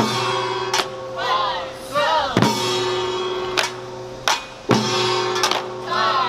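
Korean samulnori percussion ensemble playing the seated utdari rhythm: the jing gong is struck about every two and a half seconds and rings on between strokes, over janggu and buk drums and the clanging kkwaenggwari small gong.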